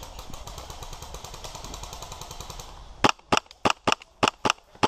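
WE P90 airsoft replica running on HPA (compressed air), firing semi-auto: sharp, loud shots about three a second, starting about three seconds in. Before them, a faint fast rattle of clicks.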